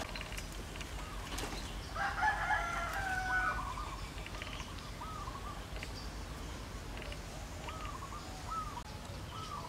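An animal calling: one long call of about a second and a half, starting about two seconds in, then a few short chirping calls later on.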